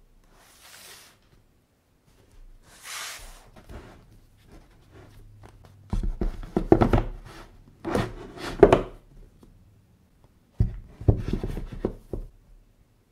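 Stack of paperback manga volumes handled on a wooden tabletop. First come two soft sliding swishes, then, from about six seconds in, clusters of sharp knocks and thuds as the books are knocked together and set down on the wood.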